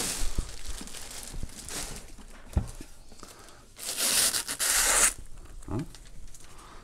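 Plastic packaging crinkling and rustling as a thermal label printer is handled, with a single knock about two and a half seconds in. About four seconds in comes a loud tearing hiss lasting about a second as the protective plastic film is peeled off the printer's clear lid.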